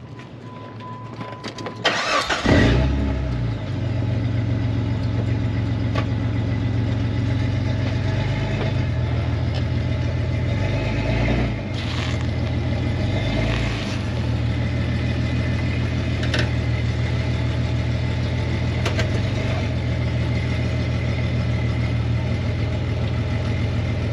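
Jeep Grand Cherokee WJ engine cranking and catching about two seconds in, then running at a low, steady idle, its pitch shifting briefly a few times in the middle as the Jeep is eased up onto a ramp of stacked tires.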